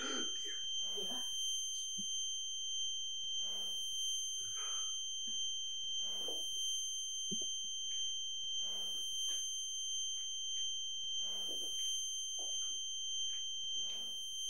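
A steady high-pitched ringing tone from the film's sound design, with soft rushing, breath-like swells about every two and a half seconds.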